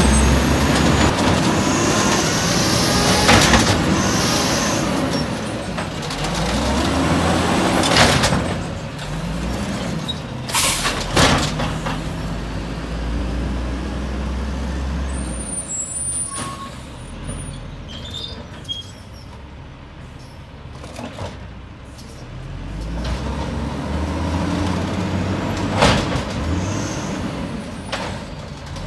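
WhiteGMC side-loader garbage truck's natural-gas engine running and revving up and down as the truck works the curb. Several sharp air-brake hisses cut in. The engine quietens for a few seconds past the middle, then builds again as the truck pulls away.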